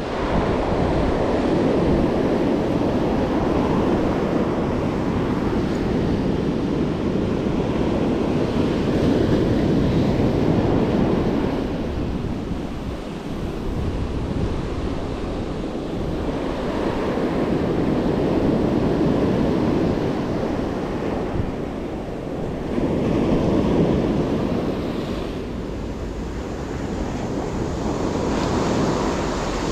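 Ocean surf breaking and foaming up a sandy beach, a continuous wash that swells and eases every several seconds as each wave comes in.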